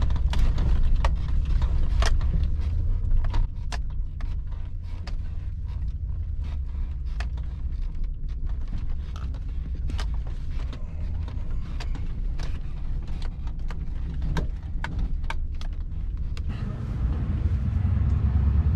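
Chevy Silverado pickup crawling over rough dirt trail in low gear: a steady low engine and road rumble with many scattered clicks and knocks from the truck jolting over the ground, the rumble growing louder near the end.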